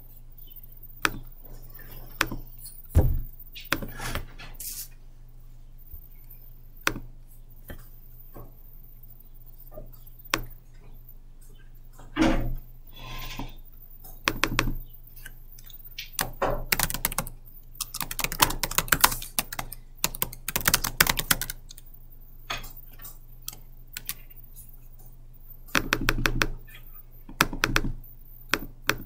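Computer keyboard typing in quick bursts, with single clicks scattered between the bursts, over a low steady hum.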